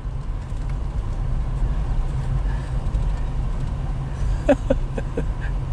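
Steady low engine and road noise of a slowly moving vehicle, heard from inside the cabin.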